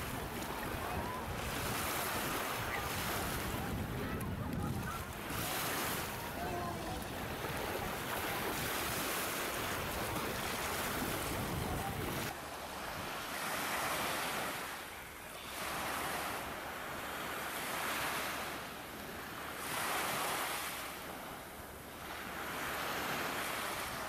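Sea surf washing close by, with wind buffeting the microphone in a low rumble for the first twelve seconds or so. After that, the wash comes in surges that swell and fall about every two seconds.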